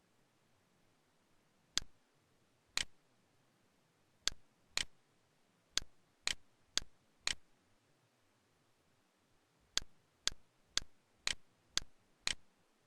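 Camtasia's cursor mouse-click sound effect: fourteen sharp, identical clicks, mostly half a second apart, with a pause of a couple of seconds in the middle.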